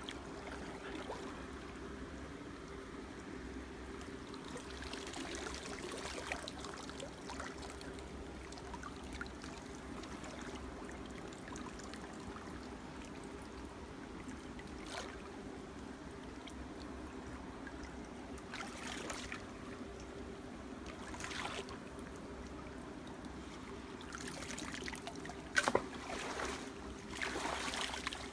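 Water sloshing and splashing around a person's legs as they wade through a shallow, muddy stream, with a steady low hum underneath. A few brief louder splashes come in the second half, the sharpest a little before the end.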